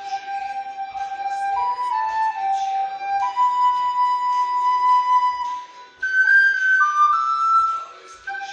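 Recorder playing a song melody in held notes that step up and down, over a recorded backing track of the song. The recorder breaks off briefly twice, about six seconds in and again near the end.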